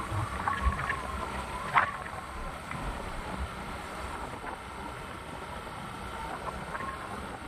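Outdoor ambience with wind buffeting the microphone in low, uneven rumbles, and a few short high chirps in the first two seconds.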